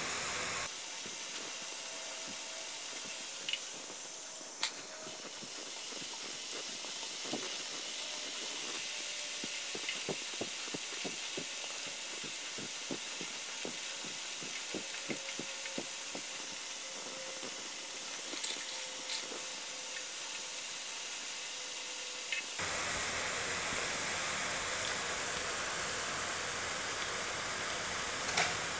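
Breadcrumb-coated bread fingers sizzling steadily in hot coconut oil in a nonstick pan. A few light clicks of the slotted spatula against the pan, about five seconds in, twice near the twenty-second mark, and once at the very end.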